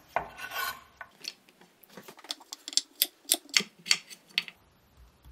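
Chef's knife and raw potato sticks on a wooden cutting board: a run of irregular sharp clicks and taps lasting about three seconds as red potatoes are cut into fries and the pieces handled on the board.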